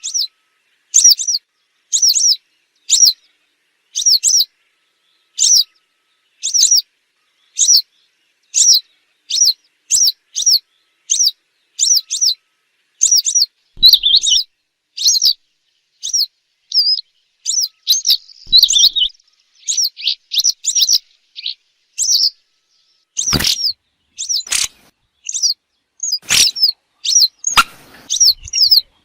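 Western yellow wagtail calling: a high, thin, downslurred 'tsweep' note repeated about once a second, coming faster, in pairs and short runs, in the second half. A few sharp clicks sound near the end.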